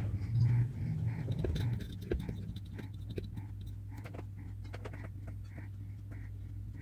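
Scattered faint clicks and taps of small electronic parts and tools being handled, over a steady low hum, with soft regular pulses about twice a second.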